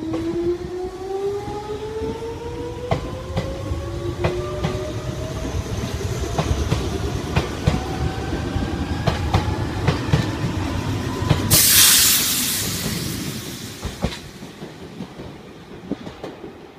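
Red Meitetsu electric commuter train pulling away: its traction motors whine, rising in pitch as it accelerates, and the wheels clack over rail joints. About twelve seconds in, a loud hiss of air comes for a couple of seconds, then the train fades as it runs off.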